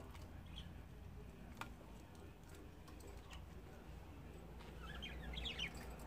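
Budgerigars chirping faintly, with a quick run of short chirps near the end and a few soft ticks before it.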